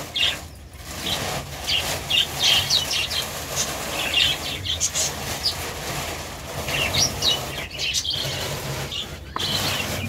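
Small caged pet birds chirping, short high calls scattered throughout, over the rustle of polythene sheeting being pulled back from the cages.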